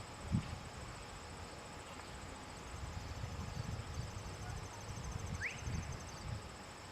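Crickets or similar insects chirping steadily in a high, pulsing trill, with soft low thuds coming and going and a single short rising chirp about five seconds in.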